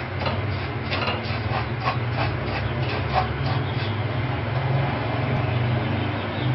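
Wooden spatula scraping and turning vermicelli in a non-stick wok as it roasts, in quick strokes about three or four times a second that fade out a little past halfway. A steady low hum runs underneath.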